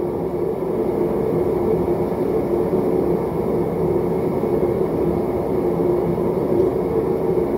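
A lit forge running with a steady rumbling roar that does not change.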